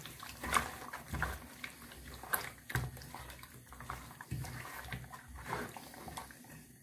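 A hand mixing and rubbing a bowlful of wet, salted rotan fish in an enamel bowl: irregular wet squelching and slapping of fish bodies, with light knocks against the bowl.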